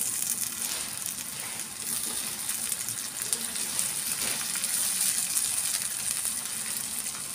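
Diced onion and tomato sizzling in hot oil in a nonstick frying pan, stirred now and then with a silicone spatula.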